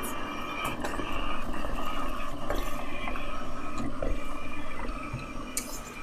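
Dirt Devil Spider M607 robot vacuum cleaner running: a steady whir of its suction fan and spinning side brushes with a faint whine and a few small clicks, not that loud. It gets quieter about five seconds in.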